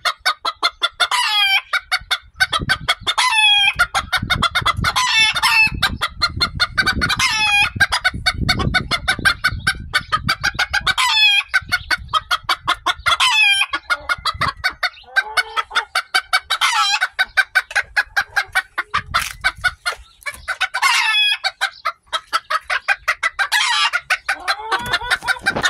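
Chickens clucking in a fast, unbroken chatter, with Old English Bantam roosters crowing every few seconds over it.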